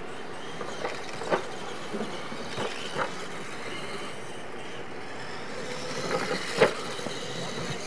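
Radio-controlled monster trucks driving over a dirt track with ramps: steady running noise broken by a series of sharp knocks as the trucks bounce and land, the loudest about six and a half seconds in.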